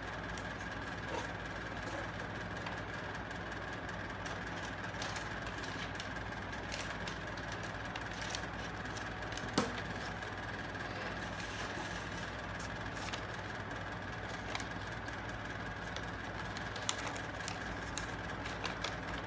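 A sheet of paper being handled against a small stick-framed box, with light rustles and scattered clicks and taps, the sharpest about halfway through, over a steady hum.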